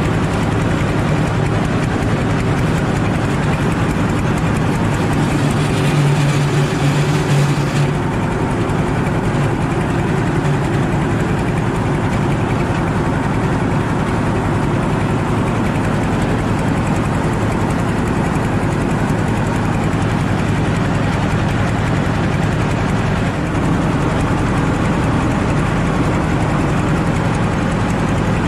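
Diesel engine of a mobile rice milling machine running steadily, a little louder for a couple of seconds about six seconds in.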